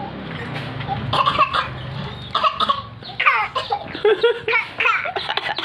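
A person coughing repeatedly in short bursts, mixed with brief high voice sounds.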